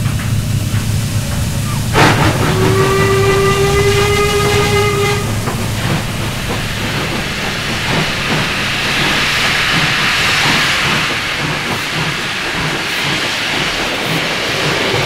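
A steam whistle blows one steady note for about three seconds, starting with a sharp hit about two seconds in, then gives way to a steady hiss of steam over a low rumble.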